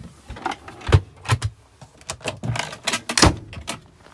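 Handling noises in a campervan's wooden cupboard: a run of sharp clicks and knocks as the cupboard door and its catch are worked and things are moved about, with two louder thumps, about a second in and just past three seconds.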